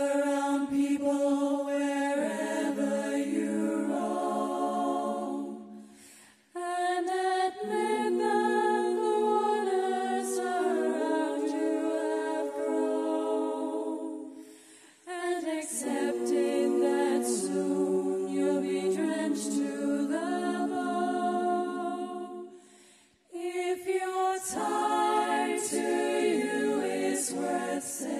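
Women's vocal group singing a cappella in close harmony, holding sustained chords in long phrases with three brief breaks between them.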